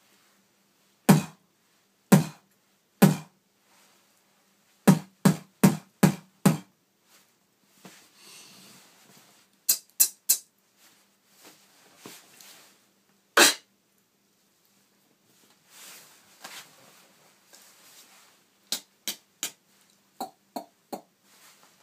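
Beatboxing: mouth-made drum sounds demonstrated one by one with pauses between. There are three single hits, then a quick run of about six, a few sharper hits, soft breathy hissing in the gaps, and a quick series of short clicks near the end.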